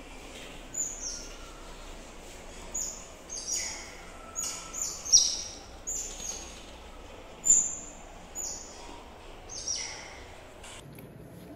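Otters chirping: a string of about a dozen short, high-pitched squeaks that drop in pitch, irregularly spaced, the loudest about five seconds in.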